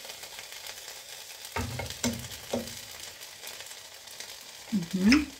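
Food frying in a pan with a steady high sizzle. Short voice sounds come about a third of the way in and again, louder, near the end.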